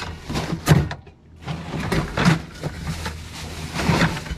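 Fish being stowed in an iced fish box: rustling of plastic bags and ice, with several knocks against the box, loudest about a second in, about halfway and near the end.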